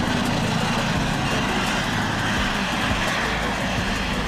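Eurocopter EC135 police helicopter flying low past: steady rotor and turbine noise.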